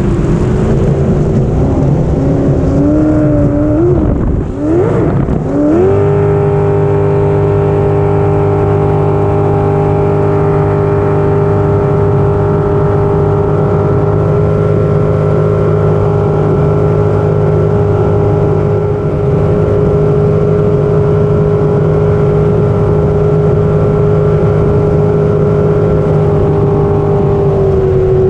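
Racing jet boat's engine running hard, heard from onboard. Its pitch wavers and dips briefly about four to five seconds in, then climbs quickly and holds a steady high pitch for about twenty seconds, easing off slightly right at the end.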